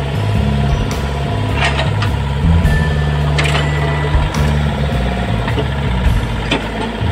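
Old Kobelco mini excavator's engine running steadily under work, with a few sharp metallic clanks.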